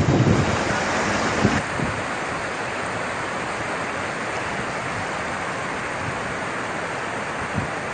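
Steady rush of floodwater from an overflowing stream running across a road, an even noise that drops slightly in level about a second and a half in.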